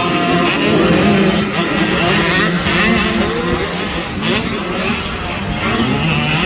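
Several small youth motocross bike engines revving at once, their overlapping pitches rising and falling as the riders accelerate around the track.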